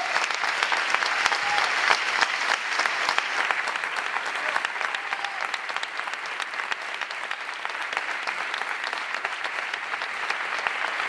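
Large audience applauding steadily, a dense patter of hand claps that eases slightly in the middle and picks up again near the end.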